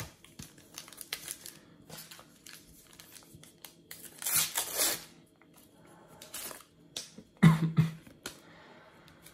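Foil trading-card packet crinkling as it is torn open, the loudest rip about halfway through, then a burst of rustling and handling as the stack of cards comes out near the end.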